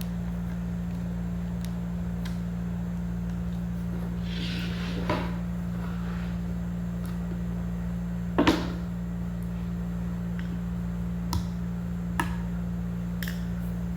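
Steady low hum, with scattered light clicks and a few knocks from cabinet parts and screws being handled during hand assembly. The loudest knock comes about eight and a half seconds in.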